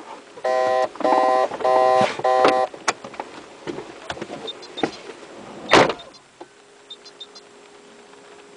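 BMW 320i's warning chime sounding four times in quick succession, followed by clicks and the car door shutting with a sharp thud a little under six seconds in.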